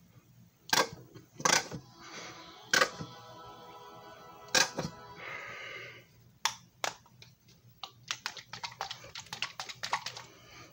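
A few separate sharp clicks and knocks of handling, then a quick run of light clicks near the end.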